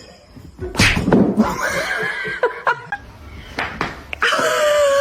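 A pet animal calling in drawn-out, wavering cries, with a sudden noisy burst about a second in; the last cry is long and drops in pitch at its end.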